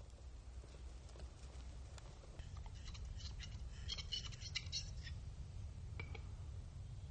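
Male western capercaillie's display song: scattered dry clicks that speed up into a dense run of clicks and scratchy notes about three to five seconds in, then one more click, over a low steady rumble.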